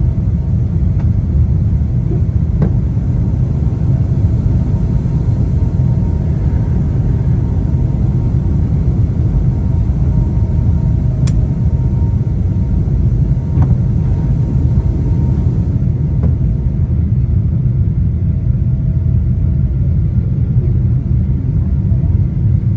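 Steady loud low rumble of a Boeing 777-200's engines and airframe heard from inside the passenger cabin, with a faint steady whine over it and a few light clicks.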